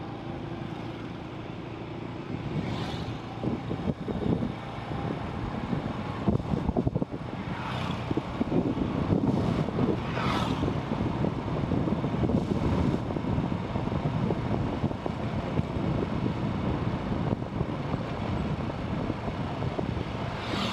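Motorcycle riding noise: wind buffeting the microphone over engine and road rumble, with a few vehicles swishing past about three, eight and ten seconds in.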